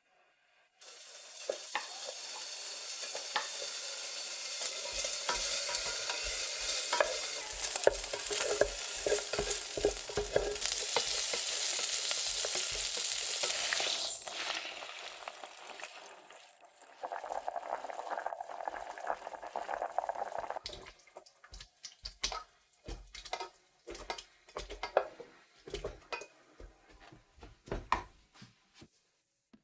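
Food sizzling in a hot frying pan while a utensil stirs and scrapes against the pan, with clicks and light knocks. The sizzle fades out a little before halfway. It gives way to a few seconds of softer scraping noise and then a run of separate clicks and knocks.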